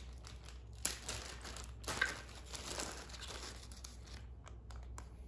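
Thin plastic bag crinkling as it is handled and turned over in the hands, with the black screw-in plugs inside it. There are sharper crinkles about a second and two seconds in, and it quietens near the end.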